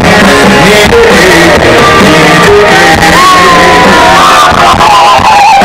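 Live rock band playing through a concert PA, with a male singer's voice over the band. About halfway through, a long held note wavers above the band. The recording is very loud, near clipping.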